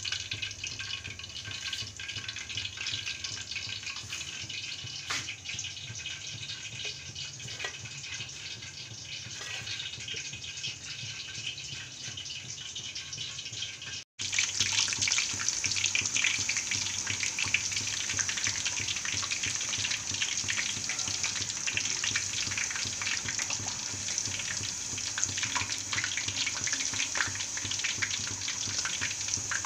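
Hot oil sizzling and crackling as food deep-fries in a kadai. A quieter hiss with scattered clicks comes first; after a sudden cut about 14 seconds in, the sizzle is louder and denser.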